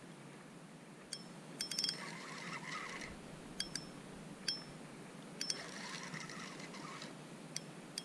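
Spinning reel being cranked slowly, its gears whirring in two spells, with scattered sharp metallic clicks and ticks. It is reeling in a heavy hooked thornback ray that drags like a sack without running.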